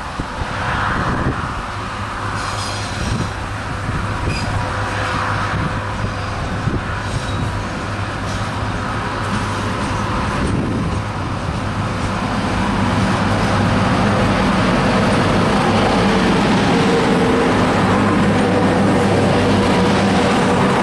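Two EF class 25 kV electric locomotives hauling a freight train approach and pass close by. A steady electric hum runs over wheel and rail noise, and the sound grows louder about twelve seconds in as the locomotives go past.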